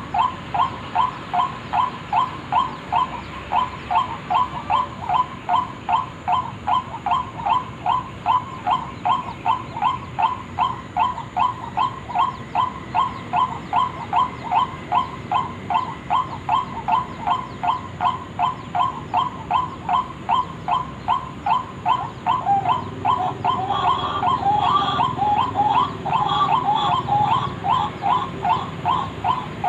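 White-breasted waterhen calling, one note repeated evenly about two and a half times a second. From about 23 seconds in, a second, more irregular call overlaps it, with some higher notes.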